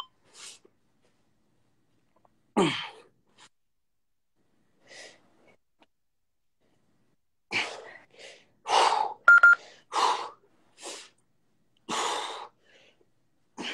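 Heavy, sharp exhalations and gasps of people working out hard, short separate breaths every second or so, coming closer together in the second half.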